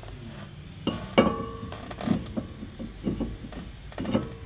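Cast-iron brake rotor being slid onto the wheel hub's studs: two sharp metallic clanks about a second in with a brief ringing tone, then lighter knocks and scrapes as it settles, and another ringing clank near the end.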